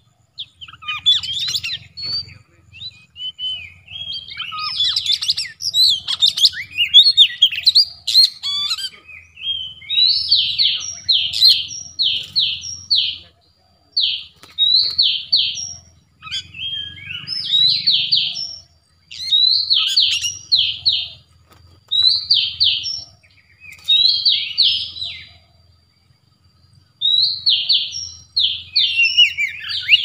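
Oriental magpie-robins (kacer) singing: a busy stretch of overlapping calls for the first several seconds, then short, high chattering phrases repeated about every two seconds, with a brief pause near the end.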